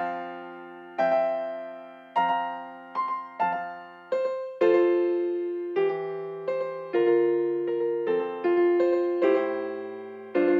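Yamaha digital piano playing a slow succession of full chords, each struck and left to ring and fade.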